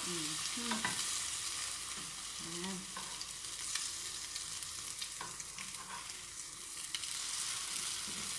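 Egg-dipped bread slices sizzling steadily in butter in a frying pan, with a few sharp clicks and scrapes of a metal spatula and fork against the pan as the slices are pressed and turned.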